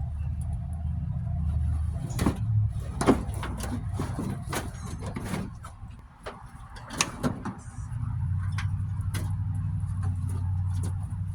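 A series of sharp knocks, clunks and scraping from pulling up the carpet and trim on a pickup cab's floor. A steady low rumble runs underneath before and after them.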